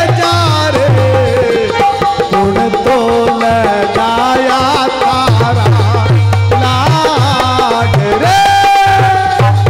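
Live devotional folk bhajan: harmonium playing sustained notes over a hand drum beating a repeated deep rhythm, with a man's singing voice over them in parts.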